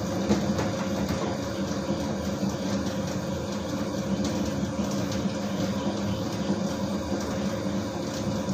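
Homemade donut-dough mixer running steadily: its electric motor and drive give a continuous hum with a rough mechanical rumble as the bowl kneads the dough.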